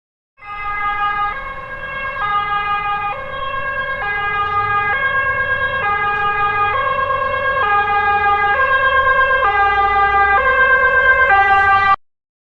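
Two-tone hi-lo siren alternating between two pitches about once a second, growing slightly louder, and cutting off suddenly near the end.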